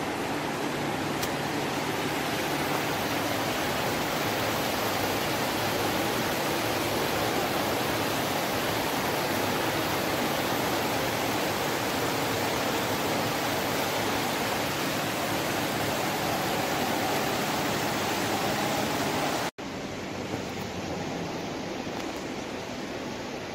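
Indoor water feature running: a steady rush of falling and splashing water. About nineteen seconds in it cuts off suddenly and gives way to a quieter, steady hiss.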